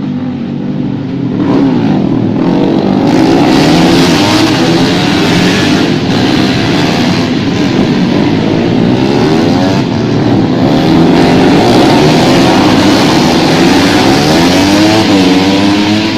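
Several racing motorcycle engines at high revs, their pitches rising and falling as they accelerate and shift gears. They get louder about a second and a half in.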